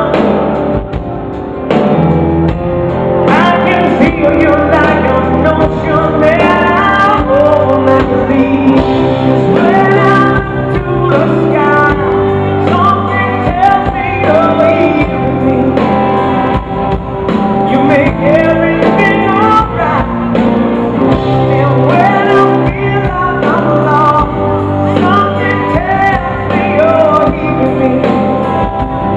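Live pop-rock band playing a slow song with electric guitars and keyboards, with singing over it, heard loud and continuous from the audience in a concert hall.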